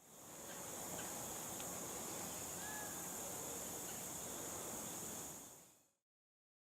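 Steady, high-pitched chorus of insects in a swamp, with a brief faint whistle about two and a half seconds in. It fades in at the start and fades out near the end.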